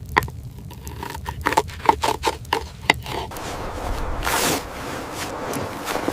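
A quick run of sharp clicks and knocks, then a louder scraping rustle about four seconds in.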